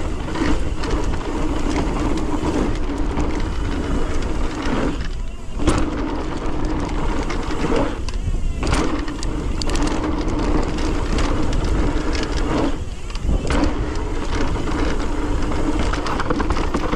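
Mountain bike rolling fast over a dirt trail: tyre noise over rough ground and wind rumble on the bike-mounted camera. A steady freehub buzz from the coasting rear hub runs under it, dropping out briefly three times.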